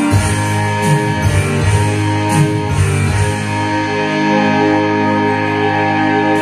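Karaoke backing music, with guitar to the fore, playing from a Platinum Cello 2 karaoke player.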